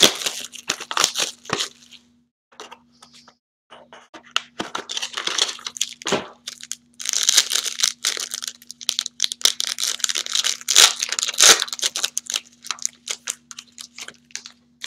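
A trading-card box's wrapping and foil pack being torn open and crinkled by hand. It makes irregular crackly tearing and rustling bursts, busiest and loudest around the middle.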